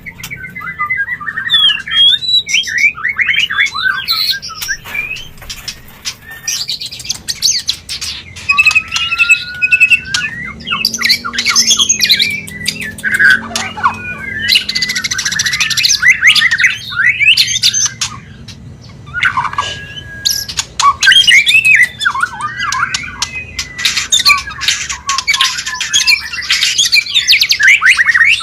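White-rumped shama (murai batu) in breeding condition singing a dense, nearly unbroken run of varied whistles, quick trills, upward glides and harsh clicking notes. This is the breeding-season call that keepers play to bring their own shamas into mating condition.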